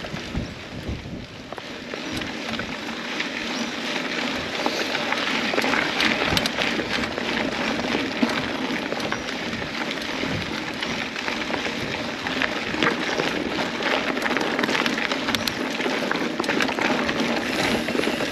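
Mountain bike being ridden along a dirt trail: a steady, rough rush of tyres on the ground with many small rattles and clicks. It is a little quieter for the first couple of seconds, then louder.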